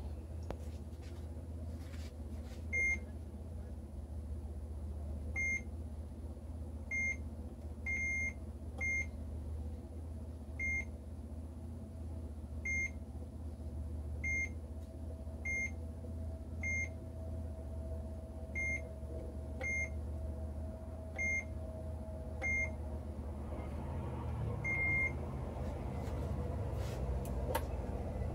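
ARB Sargon 4.0 electronic chessboard beeping: about sixteen short, high single beeps at uneven gaps of one to two seconds, with a longer beep near the end, over a steady low hum.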